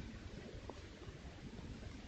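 Faint steady background noise of a trail camera's microphone, a hiss with a low rumble, with one faint short sound about two-thirds of a second in.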